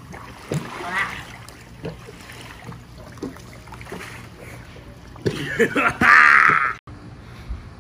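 Pool water sloshing and lapping as a person wades and moves about after being thrown in. Near the end comes a loud voice-like cry that cuts off abruptly.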